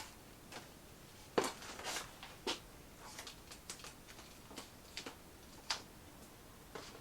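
Masking tape being peeled off a freshly spray-painted plate: irregular small crackles and ticks, the loudest about a second and a half in.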